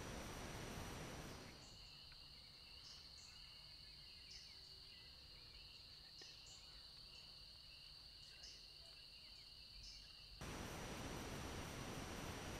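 Faint even hiss that cuts away about a second and a half in to quiet outdoor ambience: a continuous high-pitched insect trill with scattered short, higher chirps over it. The hiss cuts back in near the end.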